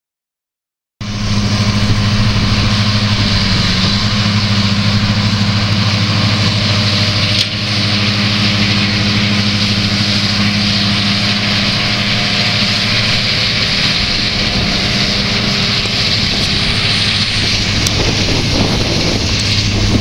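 New Holland TM165 tractor's six-cylinder diesel working steadily under load while pulling a running mower. It starts about a second in as a steady low engine hum under a loud hiss.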